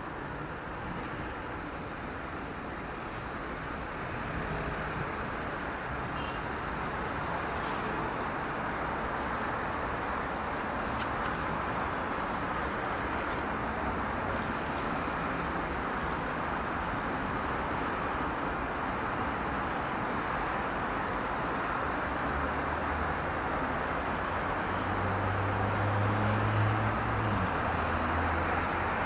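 Steady city street traffic: a continuous wash of passing cars' tyres and engines. In the last several seconds a vehicle's low engine note comes in close and grows louder.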